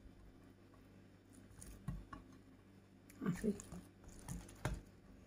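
Oiled msemen dough being folded over a noodle filling and pressed flat by hand on a terracotta plate: a few soft, wet pats and squelches.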